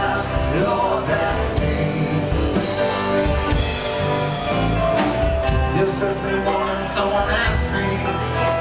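Live rock band playing, with singing over guitars and drums.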